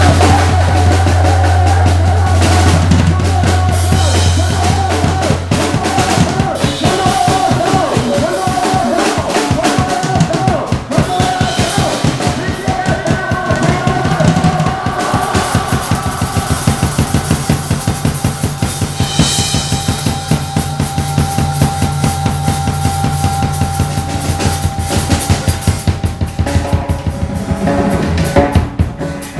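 Improvised noise-rock: a drum kit played fast and dense, with constant strikes of snare, bass drum and cymbals, over a steady low electronic drone and a wavering electronic tone.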